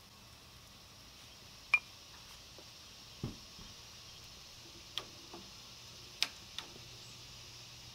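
Gas grill cooking a glazed pork loin on a turning rotisserie spit: a faint steady hiss and low hum, broken by a handful of irregular sharp ticks and pops, the loudest about two seconds in and a duller knock a little after three seconds.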